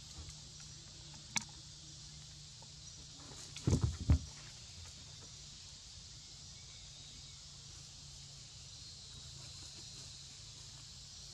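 A quick run of dull knocks about four seconds in, preceded by a single sharp click, as a young monkey moves about on a hollow plastic lid. A steady high hiss of outdoor background runs underneath.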